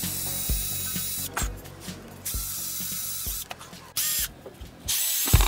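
Bosch GWS 6-100 angle grinder running with a drill bit fitted, boring into plywood with a high whine and rasping chatter. The sound cuts out and back in abruptly several times. Music with a thumping beat plays underneath.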